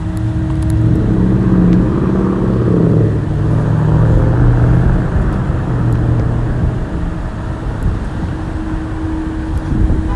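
A road vehicle's engine running close by on a city street, heard over street noise; the engine sound fades after about seven seconds.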